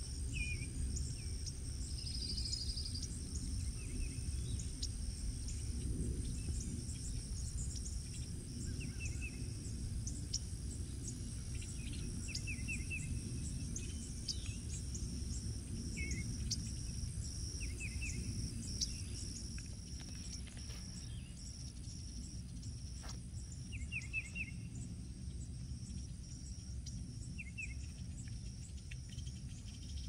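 Insects buzzing steadily, with short bird calls of a few quick notes every few seconds, over a low steady rumble.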